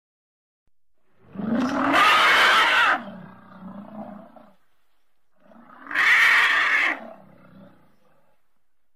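Elephant calls, a film sound effect: two loud calls, the first starting about a second in and lasting close to two seconds, the second about six seconds in and shorter, each trailing off into a quieter, lower sound.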